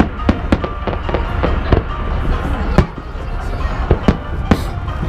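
Fireworks exploding in the air: about a dozen sharp bangs at irregular intervals, the loudest nearly three seconds in, over a steady low rumble.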